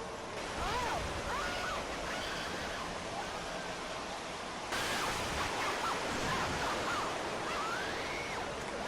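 A steady rushing noise with short, high calls that glide up and down over it. The sound changes abruptly just after the start and again about halfway through, as if separate clips were joined.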